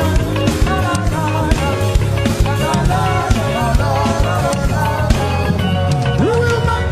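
Live gospel worship band playing an upbeat song with a steady drum beat and bass, with voices singing over it.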